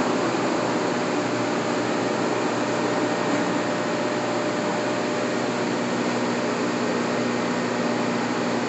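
52-inch G&L vertical turret lathe running with its table spinning: a steady mechanical hum with a few faint steady tones.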